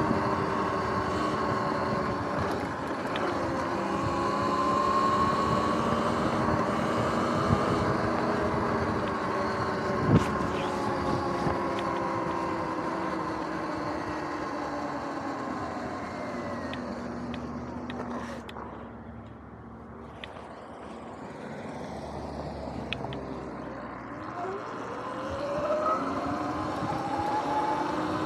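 Sur-Ron X electric dirt bike's motor and chain drive whining in several pitches at once over tyre and ground noise, the pitch following road speed. The whine falls away past the middle as the bike slows, then climbs again near the end as it speeds up. There is a single sharp knock about ten seconds in.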